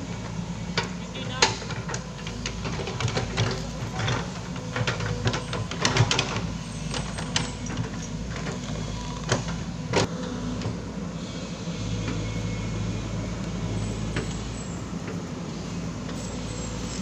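Foton crawler excavator's diesel engine running under load while it digs, with repeated sharp knocks and clanks from the bucket and soil. About twelve seconds in, the engine note becomes steadier and stronger as the machine works up the slope.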